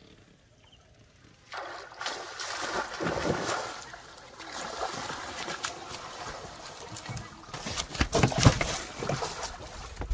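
Water splashing and sloshing as a cast net holding a large fish is hauled up out of the water into a wooden boat. Splashing starts about a second and a half in, with the loudest thuds and splashes near the end as the fish thrashes against the boat.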